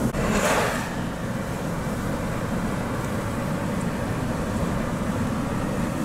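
A car driving, heard from inside the cabin: a steady low rumble of road and engine noise, with a brief hiss in the first second.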